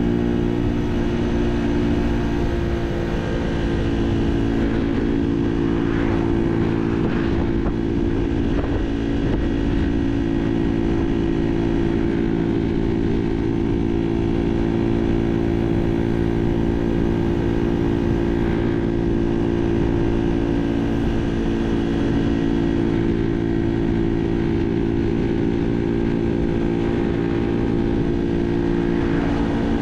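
Barton Volcano 50cc moped engine, fitted with a 15-tooth front sprocket in place of the stock 12-tooth, running at a steady pitch with no big changes in revs.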